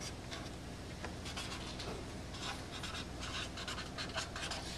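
Felt-tip marker writing on paper: faint, irregular scratchy strokes of the tip across the sheet.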